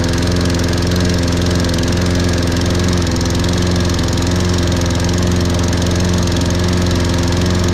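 Toro Recycler 20334 lawn mower's 190cc Briggs & Stratton engine running steadily at a cold idle, just after a hard electric start from sitting unused for months.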